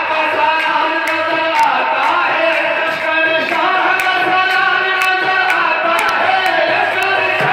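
Men's voices chanting a melodic devotional recitation, held on long notes, with occasional sharp clicks.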